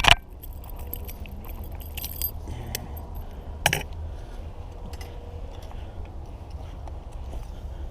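Small metal objects clinking and jingling in a few short bursts: a cluster of sharp clicks at the start, a jingle about two seconds in and another sharp clink just before the four-second mark, over a steady low rumble.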